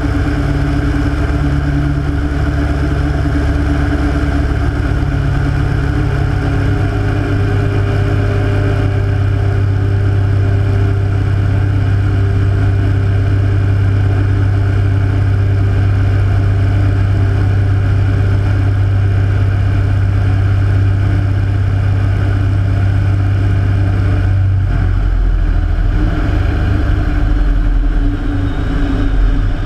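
Rotec R3600 nine-cylinder radial engine of a Hatz biplane running in flight, with wind rushing over the wing-mounted camera. The engine note drops in pitch about seven seconds in, and drops lower again at about 25 seconds.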